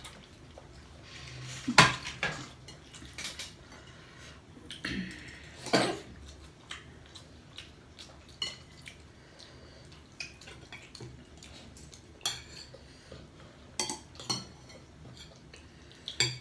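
Cutlery clinking and scraping against plates and dishes during a meal, as scattered clicks and clatters; the loudest clatter comes about two seconds in, another about six seconds in.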